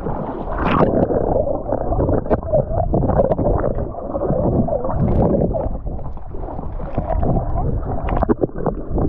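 Shallow seawater sloshing and gurgling around a GoPro action camera held at and just under the surface, heard muffled and dull, with scattered small clicks and knocks.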